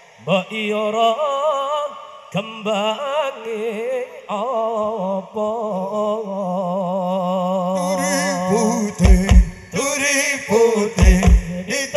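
A male voice sings a slow, unaccompanied sholawat melody with a strong vibrato on long held notes. About nine seconds in, deep drum beats of the hadrah group come in, a few hard strokes.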